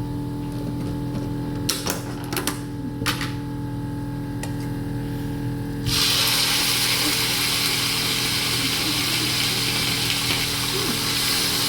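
A few clicks of utensils against the pan, then about six seconds in a loud, steady sizzle starts as marinated beef goes into hot oil with fried garlic. A steady low hum runs underneath.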